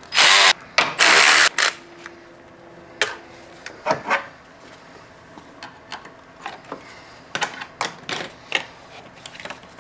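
A power drill-driver runs in two short bursts in the first second and a half, taking the intercooler pipes off. Scattered light clicks and knocks of tools and parts being handled follow.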